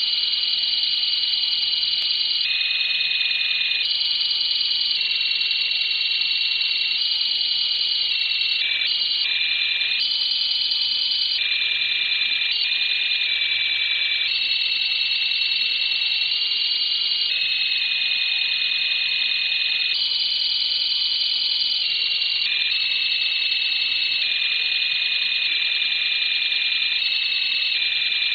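Shortwave radio signal received on a WebSDR tuned to 13565 kHz: a steady cluster of high electronic tones whose pitch shifts up and down in steps every second or two, with a brief rapid flutter about a third of the way through.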